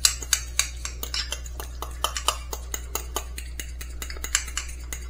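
A fork stirring a creamy sauce in a small glass bowl, clinking and scraping against the glass in quick, irregular clicks.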